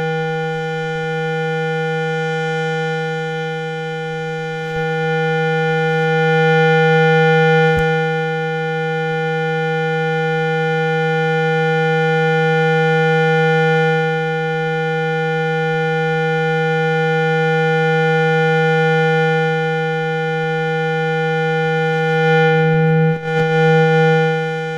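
Speaker-cleaner tone: a steady, loud, low buzzing tone rich in overtones, played to vibrate a speaker cone and shake out water and dust. Its loudness swells and eases slowly, with a brief dip near the end.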